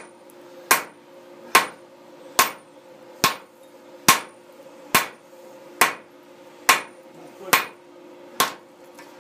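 Six-pound sledgehammer striking a hot axe bit, ten even blows a little under a second apart, each with a short ring. The heavy blows rough-forge the bit right after forge welding, which tests the weld. A faint steady hum runs underneath.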